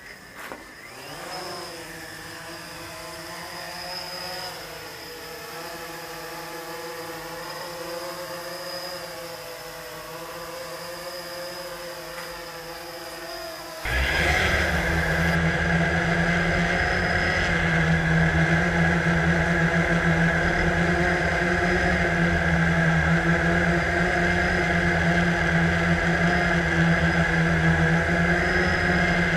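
Quadcopter drone's motors spin up about half a second in and buzz with a wavering pitch as it lifts off and hovers. About 14 seconds in the sound jumps much louder to a steady motor buzz over a heavy low rumble, as picked up by the drone's onboard camera.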